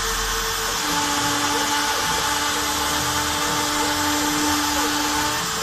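Homemade CNC router engraving with a V-bit: the rotary-tool spindle runs steadily with a bright hiss, while the axis motors hum in steady tones that change as the carriage moves. One hum drops out just under a second in, and others start about a second in and stop near the end.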